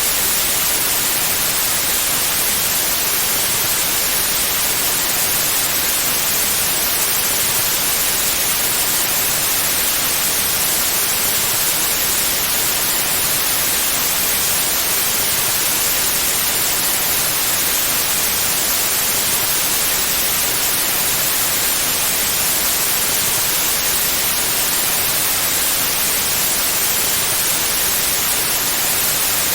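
Steady, unchanging white noise: an even hiss with nothing else in it.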